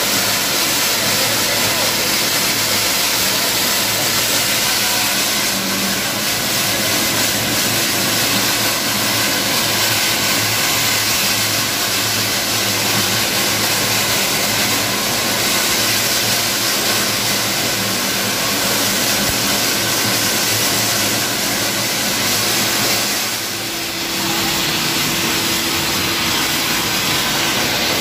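Refractory gunning nozzle spraying: compressed air blasting the refractory mix out in a loud, steady hiss, with a steady hum underneath. The hiss dips briefly about three-quarters of the way through, then carries on.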